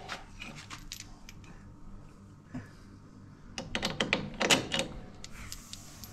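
Metal tools and loose bolts, nuts and knives clinking and rattling as they are handled: a scatter of light metallic clicks in the first second or so and a louder run of them around four seconds in.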